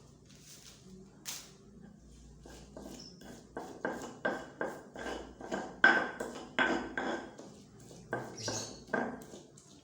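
A metal utensil clinking repeatedly against a cooking pot, about two ringing strikes a second, starting a few seconds in and stopping near the end.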